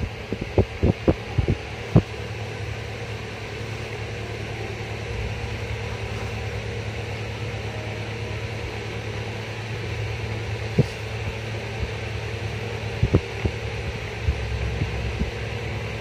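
Steady low hum, with a quick run of soft thumps in the first two seconds and a few more later on, from a hand patting and tucking a blanket around a baby monkey lying on a bed.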